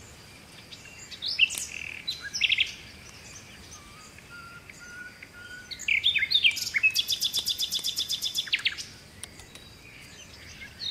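Small birds chirping and calling in short, high notes, with a fast trill of rapidly repeated notes starting about seven seconds in and lasting nearly two seconds.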